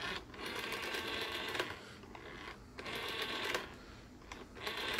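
Rotary dial of a 1975 East German RFT Variant telephone, pulled round and let go three times. Each return is a whirring run of clicks lasting about a second, with quieter gaps between them as the dial is wound.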